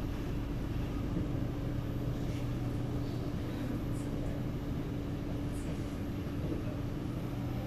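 SMRT C751B train standing at a station platform with its onboard equipment running: a steady hum with two steady low-pitched tones, and a couple of faint clicks.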